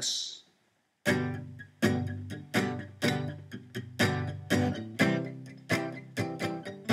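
Martin D-28 acoustic guitar strummed in a steady rhythm of chords, starting about a second in, each stroke carrying a strong bass note and ringing on between strokes.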